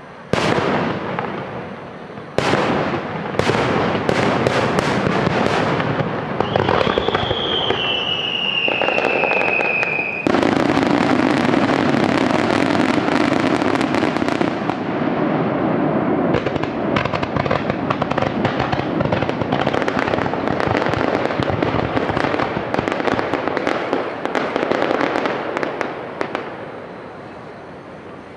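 Large set-piece fireworks going off: a series of sharp bangs, a long whistle falling in pitch, then from about ten seconds in a dense, continuous crackling and popping that thins out near the end.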